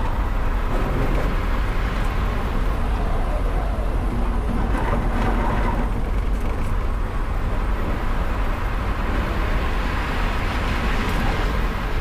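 Onboard sound of an electric car at racing speed on a track lap: a steady rush of tyre, road and wind noise with a heavy low rumble.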